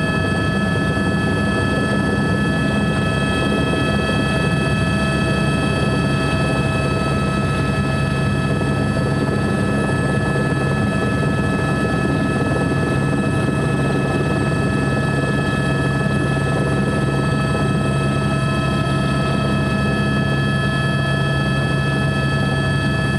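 Helicopter running steadily: an unchanging low drone with several constant high whining tones above it.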